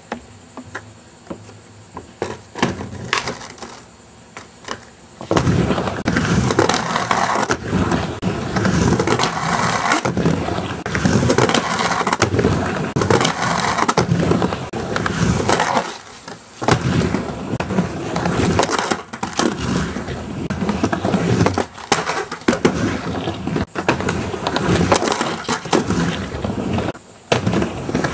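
Skateboard riding a backyard micro ramp: a few sharp clacks, then from about five seconds in, continuous loud rolling and grinding as the board goes back and forth and the metal trucks scrape along the concrete pool coping, with brief drops near the middle and toward the end.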